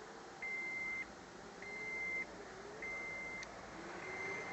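The car's interior warning chime is beeping steadily: a single high tone, about half a second long, repeated four times at about 1.2-second intervals.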